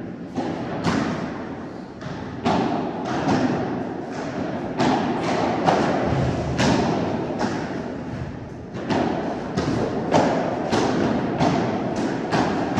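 Padel ball struck by rackets and bouncing during a rally: a quick, irregular series of sharp hits, about one or two a second, each echoing in the indoor hall.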